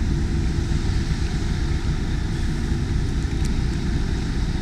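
Steady low engine rumble with a constant hum, like heavy vehicles running or idling nearby.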